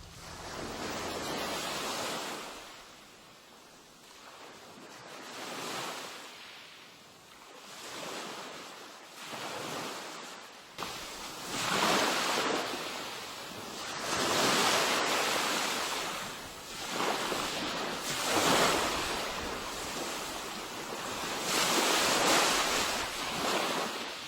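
Sea waves washing onto a shore, each one swelling and falling away every few seconds, growing louder about halfway through.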